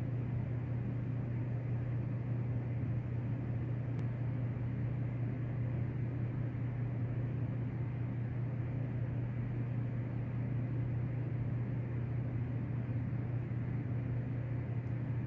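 A steady low hum with a noisy hiss over it, unchanging throughout, with one faint click about four seconds in.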